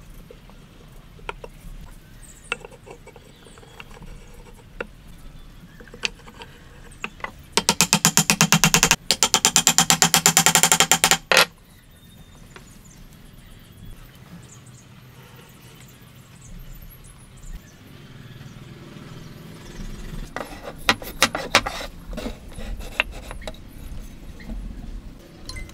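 Wooden table-leg joint being fitted by hand: scattered knocks and taps of wood against wood, with a cluster of them near the end. A loud, rapid mechanical rattle runs for about four seconds in the middle, with a short break partway through.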